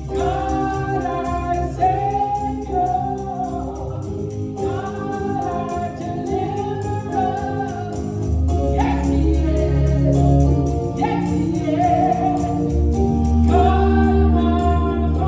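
Gospel song with a choir singing over a band with a steady beat and tambourine.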